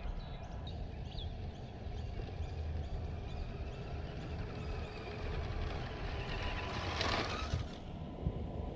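Outdoor ambience: a steady low rumble of wind on the microphone, with birds chirping, and a short rush of noise about seven seconds in.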